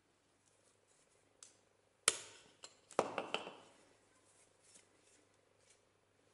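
Wooden axe sheath and steel axe head knocking together as the sheath is taken off the blade and set on the workbench: one sharp knock about two seconds in, then a quick cluster of knocks and scrapes a second later.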